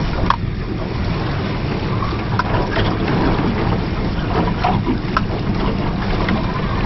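Small boat's outboard motor running steadily at trolling speed, with wind and water noise around the hull and a few light clicks.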